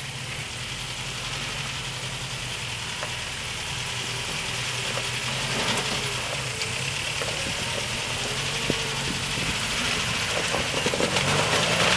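Lifted pickup truck's engine running at low revs as it crawls up a rock ledge, growing steadily louder as it comes closer. The revs pick up near the end, and a few sharp knocks sound along the way.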